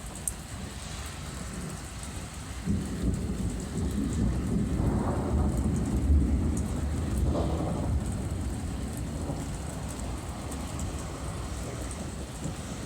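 Rolling thunder over steady falling rain: a deep rumble breaks in suddenly about three seconds in, swells for a few seconds, then slowly dies away.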